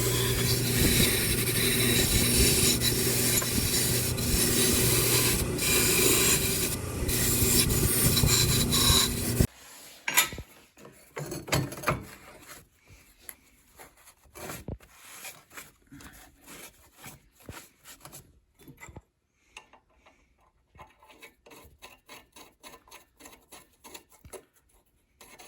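Rusted metal being scraped and rubbed while a seized anchor bolt is worked loose and cleaned of rust. A loud, steady rasping runs for about nine seconds and stops abruptly, followed by quieter, scattered scrapes and clicks.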